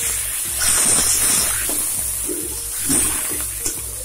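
Water poured into a hot karahi of frying onions and garlic-cumin paste, hissing and sizzling as it hits the oil, loudest about a second in, then stirred through with a spatula.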